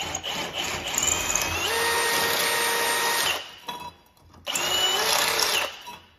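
Cordless drill cleaning out holes in an aluminium part, run in two bursts. The first run climbs to a steady whine and holds for about three seconds. After a pause it starts again, about four and a half seconds in, for a second or so.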